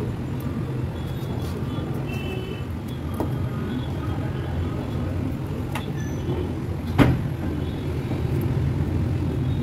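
Steady low rumble of background noise under small sounds of a knife slicing mango flesh off the skin, with one sharp click about seven seconds in.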